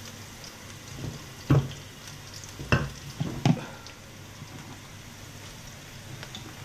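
Sliced onions, chillies and bird's eye chillies sizzling steadily in hot oil in a wok, the onions already wilted. Three sharp knocks sound in the first half.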